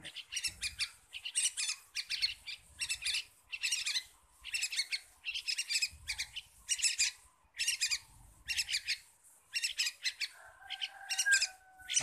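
Young yellow-vented bulbuls (trucukan) calling in a row of short, bright chirps, about two a second.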